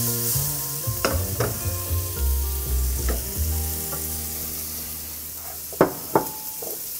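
Diced roasted red peppers and shallots sizzling in olive oil in a nonstick frying pan. A few sharp knocks sound over the sizzle, the two loudest close together near the end.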